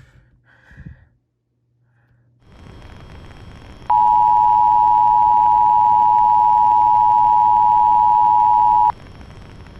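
Emergency Alert System attention signal on a radio broadcast: a loud, steady two-tone alarm held for about five seconds, starting abruptly a few seconds in and cutting off sharply near the end. A hiss of radio static runs before and after it.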